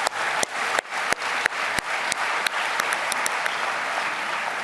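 Audience applauding, with a few loud close claps standing out about three times a second for the first couple of seconds before they thin out.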